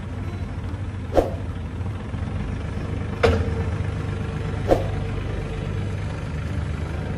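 Forklift engine running steadily as the forklift drives, with three sharp knocks: about a second in, after about three seconds, and near the five-second mark.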